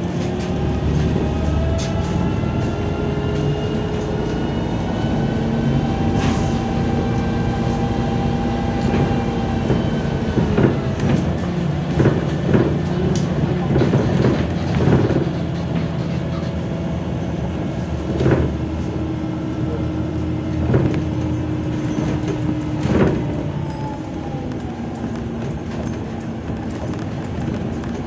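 MAZ 203 city bus heard from inside the passenger cabin while under way: engine and drivetrain whine climbing slowly in pitch for about ten seconds as it picks up speed. After that come repeated knocks and rattles from the body and fittings over the road.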